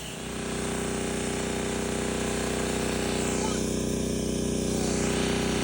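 Small gasoline engine revving up just after the start, then running steadily at the higher speed and slowly getting louder.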